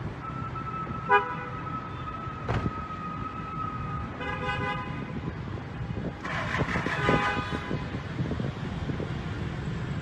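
Vehicle horns honking in city street traffic: a few short toots and a longer blast, over a steady high tone and the rumble of traffic.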